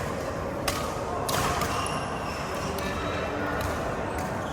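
Badminton rally: several sharp racket strikes on a shuttlecock, with people talking in the background.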